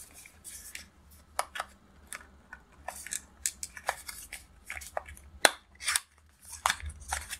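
Small cardboard packaging box handled and its flaps folded, giving irregular crisp clicks and crinkles of the paperboard.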